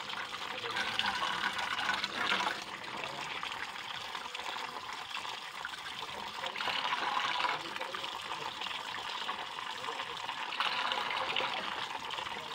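Tap water running steadily into a metal bowl and splashing over eggs being rubbed clean by hand. It swells louder three times as the hand moves through the stream.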